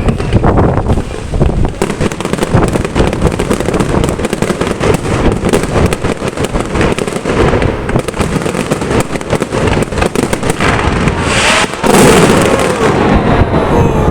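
Aerial fireworks going off in a dense, continuous run of bangs and crackles, growing louder about twelve seconds in with a few whistling glides.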